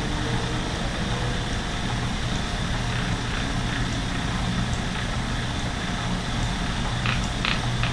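Lendrum spinning wheel running with its very fast flyer: a steady whir over a constant low hum. A few short, light clicks come near the end.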